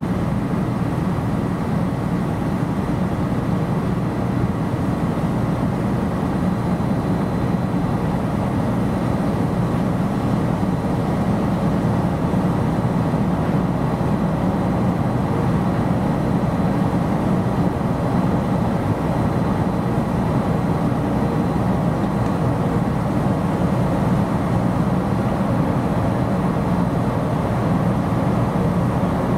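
Steady low drone of a coastal cargo ship's diesel engine running as the ship moves slowly under way, unchanging throughout.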